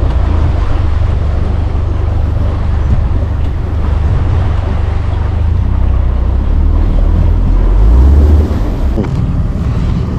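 Steady low rumble of a bass boat's outboard motor running at low speed, with wind buffeting the microphone. The rumble swells briefly, then drops away suddenly about eight and a half seconds in, leaving a quieter vehicle hum.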